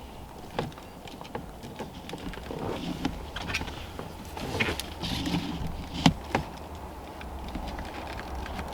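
Small clicks, taps and rustling from hands working a plastic wiper switch loose from a car's steering column, with one sharp click about six seconds in.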